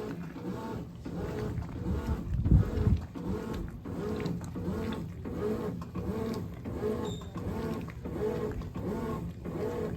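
Brastemp 17 kg top-loading washing machine agitating, its motor whining up and down with each back-and-forth stroke about two to three times a second, with a heavy low thump about two and a half seconds in.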